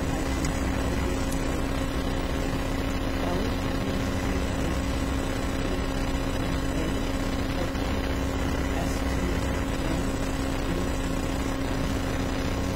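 Steady hum and hiss of room tone, with a constant low tone and nothing else happening.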